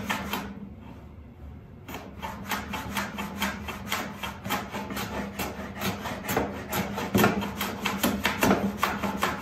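A bench plane run on its side along a mitre shooting board, shaving end grain off walnut frame pieces, with a short scrape at each pass. After one stroke and a brief pause near the start, the strokes come quickly, a few a second.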